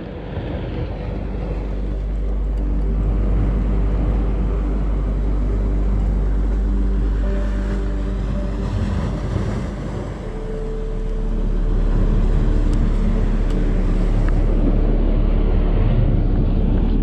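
A boat engine running steadily, with wind rumbling on the microphone; it grows somewhat louder about two-thirds of the way through.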